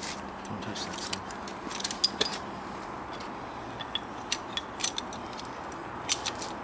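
Scattered sharp clicks and small metallic clinks of hand tools being handled at the concrete balusters, over a faint steady background hum.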